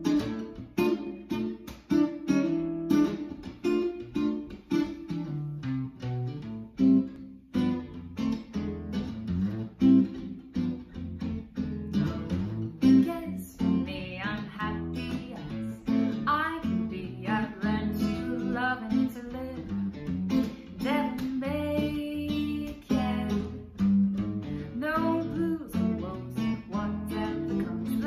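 Archtop guitar playing rhythmic jazz chords. About halfway through, a woman's voice begins singing the melody over the guitar.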